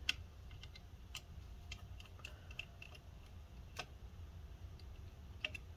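Faint, irregular light clicks and ticks of a small Phillips screwdriver working tiny screws out of a laptop cooling fan.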